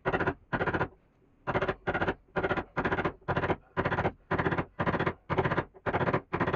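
A hand tool working wood in rhythmic strokes, a little over two a second, each stroke a short scraping burst.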